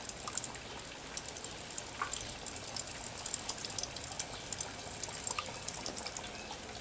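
Hot oil in a deep fryer sizzling with many small crackling pops as cornmeal-coated crappie fillets fry.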